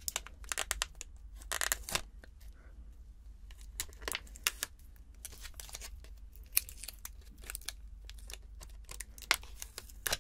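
Packaging being peeled and torn off a lollipop-shaped cosmetic: a longer tear about two seconds in, then scattered crinkles and sharp little clicks of card and plastic being handled.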